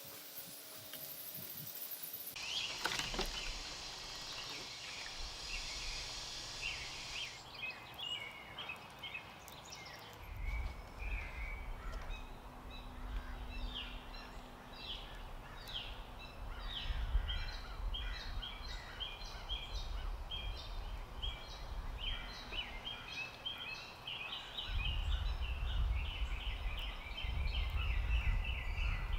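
Wild songbirds chirping, many short notes repeated in quick runs that grow busier toward the end, over a low background rumble.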